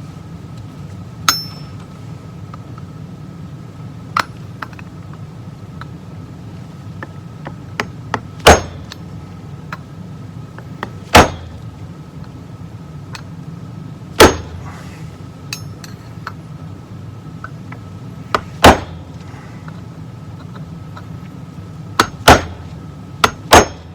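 Hammer blows on a punch, about ten sharp single strikes several seconds apart, coming quicker in pairs near the end: staking the aluminum of a transmission valve body plate to hold the check balls in place. A steady low hum runs underneath.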